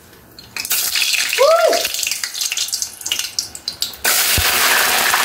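Raw potato sticks dropped into overheated frying oil in a pot, the oil sizzling hard. About four seconds in, another handful goes in and the sizzle jumps louder and stays loud.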